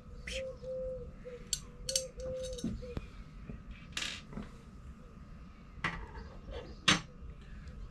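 Screws and small metal fittings clinking and rattling as they are picked through by hand, with a couple of sharper clicks near the end.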